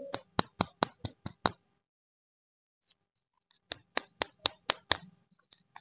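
Crisp clicks and crackles from fingers working a plastic lollipop wrapper: a run of about seven at roughly four a second, a pause of about two seconds, then six more.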